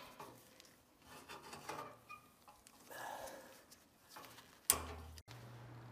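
Locking pliers working a rusted drain plug loose from the bottom of a 1969 Allis-Chalmers forklift's steel fuel tank: faint metallic scraping and creaking as the plug is turned, with one sharp metal clank near the end.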